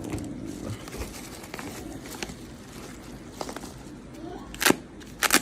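Knife packaging being handled and opened by hand: crinkling and rustling with small scattered clicks, then two loud, sharp noises close together near the end.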